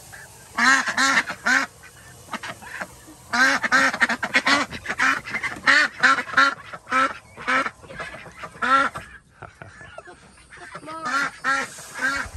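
A group of white domestic ducks quacking loudly and over and over in quick runs of calls, with a lull of about two seconds near the end before a few more quacks. The flock is upset and throwing a fit.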